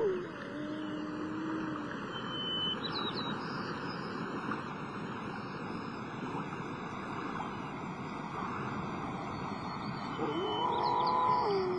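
Gray wolf howling. A howl trails off with a downward glide about a second in, and near the end a new howl rises, holds and drops in pitch, over a steady rushing background.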